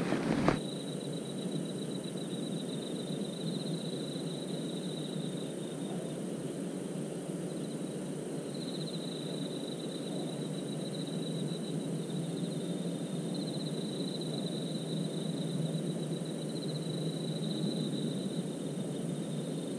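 Night insects such as crickets chirping in a high, pulsed trill that runs in long stretches with short breaks, over a steady low hiss. A brief rustle of handling right at the start.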